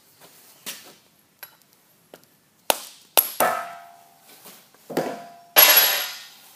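A plastic-headed mallet strikes a steel drift to knock the brass screw nut out of a lathe compound slide casting. There are a few light taps, then about five sharp blows in two groups, some followed by a short metallic ring. The last blow, near the end, is the loudest.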